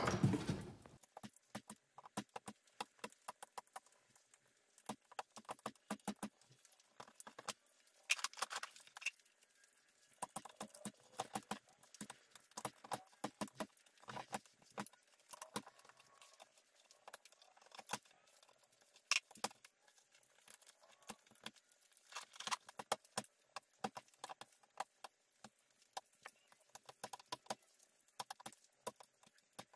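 Thick copper wire being stripped by hand: irregular clusters of small clicks and scraping as a tool works along the red plastic insulation and peels it away. A single thump right at the start is the loudest sound.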